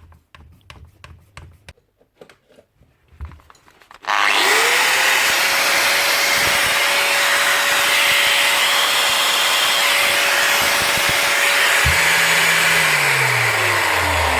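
Bosch GWS9-115 angle grinder's 900-watt motor, after a few light handling clicks, switched on about four seconds in. It spins up quickly and runs smoothly at a steady speed, its brushes cleared of fibreglass, then its pitch begins to fall near the end as it winds down.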